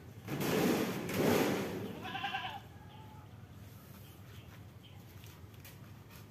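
Thin 0.4 mm sheet metal panel wobbling and rumbling in two loud bursts as it is handled against a steel cabinet frame, followed about two seconds in by a short, wavering, high-pitched cry.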